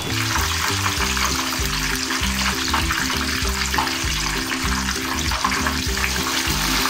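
Pork belly deep-frying in hot oil, a steady sizzling crackle. This is the second fry that crisps the skin for Ilocos bagnet.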